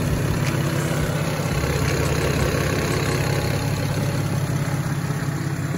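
BMW N54 3.0-litre inline-six, converted to a single Precision 6266 ball-bearing turbo with an open cone filter, idling steadily with the hood open.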